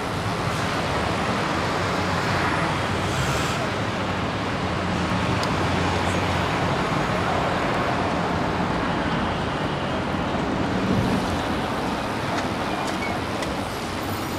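Steady city street traffic noise: motor vehicles running, with a low engine hum and the rush of tyres on the road.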